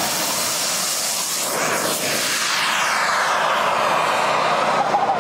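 XL Boomerang model jet's small turbine engine at take-off power, a loud steady hissing whine as the model rolls and climbs out. Its pitch sweeps up and down as it passes, about two seconds in.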